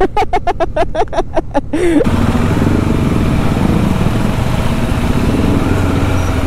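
A rapid choppy pulsing, about six beats a second, cuts off suddenly about two seconds in. It gives way to a motorcycle running steadily under way, its engine hum under a dense, steady rush of wind and road noise.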